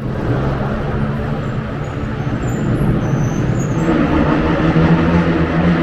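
Road traffic: motor vehicles running, with a steady engine hum that grows louder about four seconds in.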